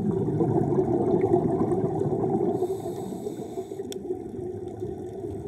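Scuba regulator breathing underwater: the bubbling of an exhale for about two and a half seconds, then a softer hiss of an inhale ending in a click.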